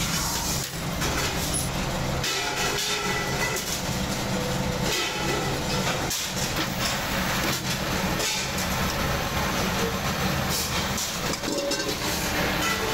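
Metal-forming press machinery running: a steady motor hum with irregular metallic knocks and clatter.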